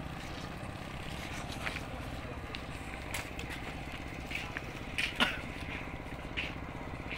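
Steady low outdoor rumble with a few faint knocks and scuffs, the loudest about five seconds in.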